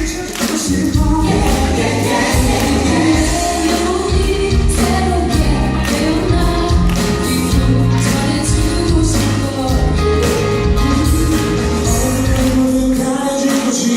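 A live band playing, with several voices singing the melody together over a steady bass line.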